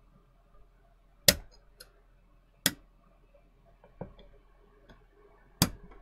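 Sharp clicks and taps as the heatsink clamp is fitted back over an Xbox One X's APU: three loud clicks with fainter taps between.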